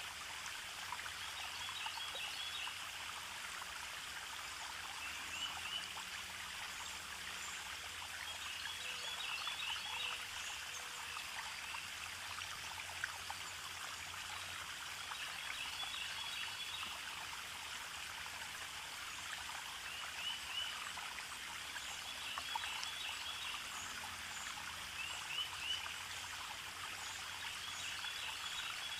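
Steady running water, with small clusters of short chirps recurring every few seconds.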